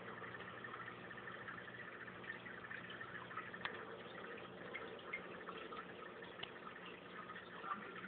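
Faint, steady trickling and dripping of aquarium water over a low steady hum.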